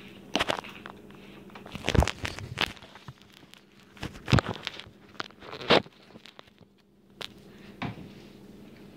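A series of irregular knocks and bumps, handling noise from the recording phone being picked up and moved, the loudest about two seconds in and again a couple of seconds later.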